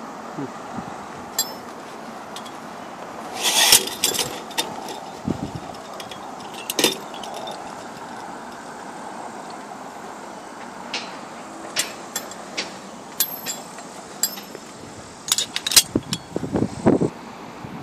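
Steady outdoor background noise with scattered light clicks and clinks, a few louder clusters of them about 4 seconds in, near 7 seconds and near the end.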